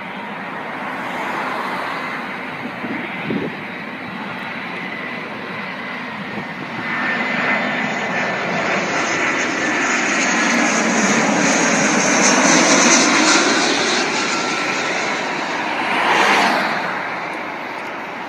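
easyJet Airbus A320 jet airliner on final approach, gear down, passing low overhead. Its engine noise builds into a loud rushing roar with a high whine, peaks about two-thirds of the way through, then fades as it goes by.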